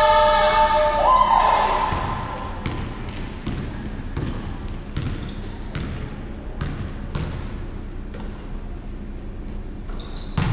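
A basketball being dribbled on a hardwood gym floor, a steady run of sharp bounces about every two-thirds of a second. Before the dribbling, a sustained high-pitched sound jumps up in pitch about a second in and fades. Short high squeaks and a louder knock come near the end.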